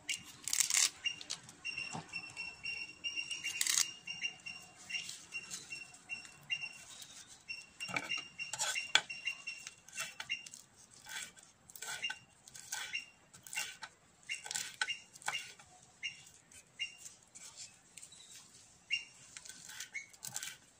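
Kitchen knife chopping green leaves on a wooden cutting board: quick, irregular sharp taps of the blade against the wood.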